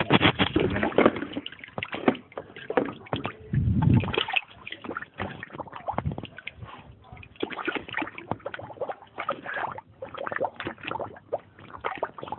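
Pool water sloshing and splashing irregularly as Rottweilers move about in a swimming pool, with louder splashes at the start and around four seconds in.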